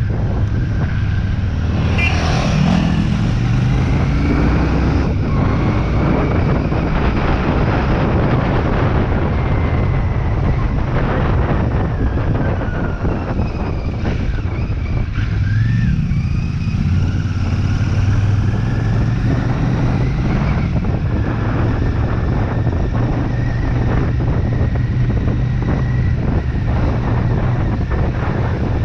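Royal Enfield Shotgun 650's parallel-twin engine running under way on the road, its pitch rising and falling several times as the rider accelerates and eases off.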